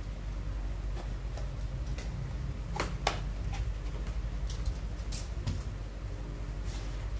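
A small cardboard product box being opened and handled, giving scattered clicks and short rustles of packaging, the two sharpest about three seconds in and a cluster around five seconds. A steady low hum runs underneath.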